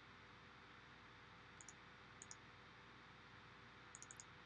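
Near silence with a few faint computer clicks: single clicks about one and a half and two seconds in, then a quick double click near the end, as files are selected and opened.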